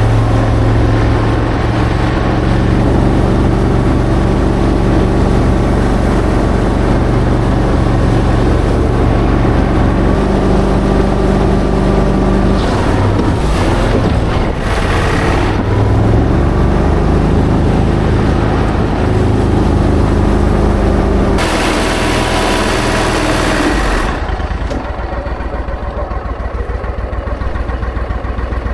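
A vehicle engine running steadily, changing pitch partway through with a burst of hissing noise near the end, then dropping to a quieter, evenly pulsing idle.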